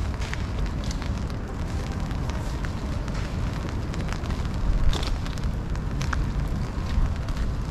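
Rain falling: a steady hiss full of scattered sharp drips and ticks over a low rumble, with one louder knock about five seconds in.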